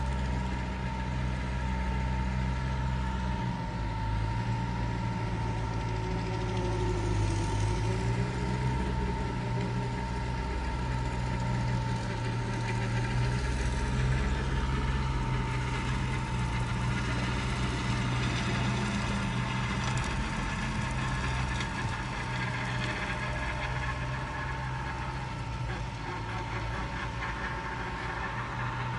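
Tractor engine running steadily, with a constant high whine over the low engine note.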